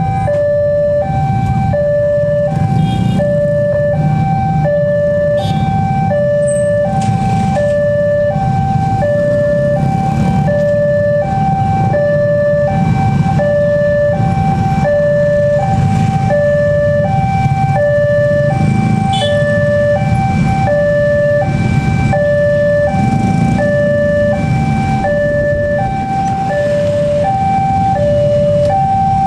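Railway level crossing's electronic warning alarm, alternating evenly between a lower and a higher tone about two notes a second, signalling that the barriers are down for an approaching train. Under it, the low rumble of idling motorcycles and cars queued at the crossing.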